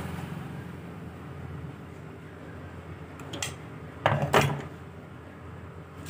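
Metal tool working the gear shaft of a hand-cranked bael juicer's gearbox to tighten its loose gear, heard as a short click about three and a half seconds in and two sharp metallic scrapes just after four seconds, over a steady low hum.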